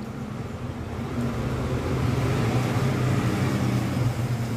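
A motor vehicle's engine running with a steady low hum, swelling a little over the first two seconds and then holding.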